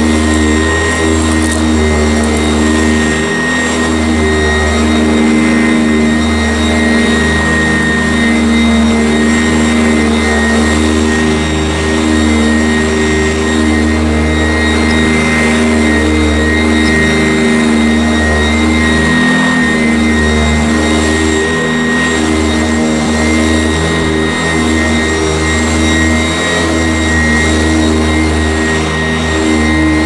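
Eureka Sanitaire upright vacuum cleaner running steadily as it is pushed over carpet: a steady motor hum with a thin high whine above it.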